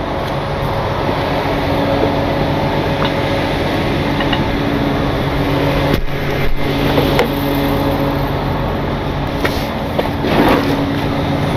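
Tow truck engine running steadily at idle, with a few light clicks and knocks from the wheel-lift gear being handled.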